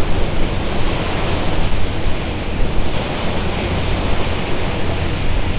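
Wind buffeting the microphone and water rushing past the hull of a boat under way: a steady, gusting rush of noise.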